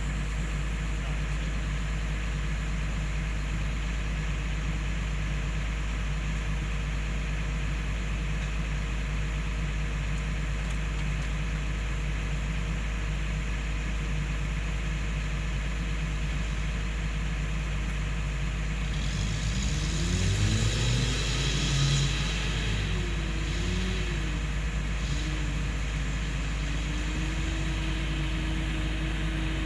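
Toyota Land Cruiser hardtop's engine running steadily at low speed as the loaded truck crawls through deep mud, revving up in a few rising and falling surges about twenty seconds in, then holding a steady higher note near the end.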